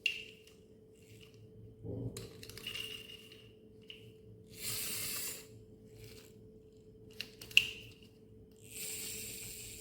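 Small hard parts and screws being handled while a plastic toy bulldozer is taken apart: sharp clicks with a short metallic ring, the loudest about three-quarters of the way through. Between them come stretches of scraping and rustling, with a faint steady hum underneath.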